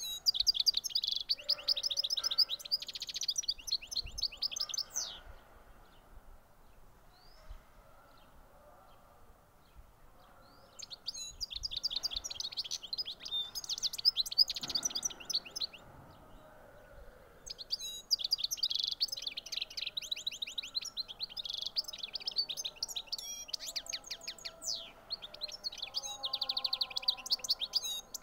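European goldfinch singing: three long bouts of rapid, high twittering song, the first two separated by a pause of about six seconds, the last running almost unbroken through the second half.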